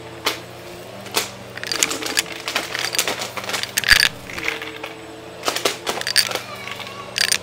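Upright bagless vacuum cleaner running with a steady motor hum as it sucks up coins from a shag rug: the coins clink and clatter up through the machine in irregular sharp metallic clicks, some of them ringing.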